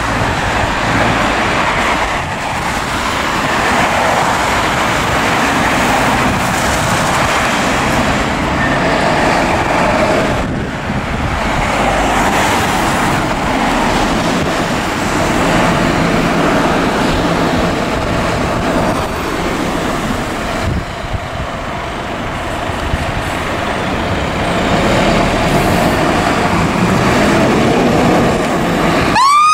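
Road traffic and a fire engine's diesel engine running as it pulls out of the station. At the very end its siren starts, rising in pitch.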